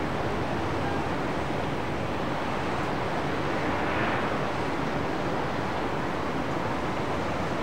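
Jet airliner's engines and airflow, a steady rushing noise that swells slightly about four seconds in.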